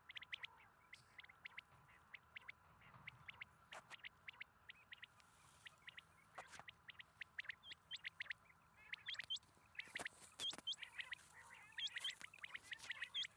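Quail chicks peeping: many short, rapid high chirps that grow denser and louder towards the end, where some notes hook downward. A few sharp knocks come through the middle.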